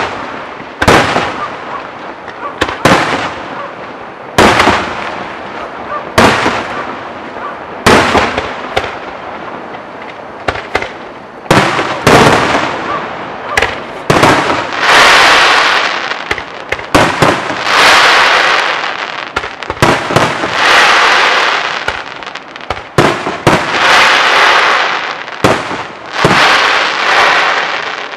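Aerial firework shells bursting in a professional display: sharp bangs every second or two, then from about halfway longer, drawn-out bursts lasting a second or two each.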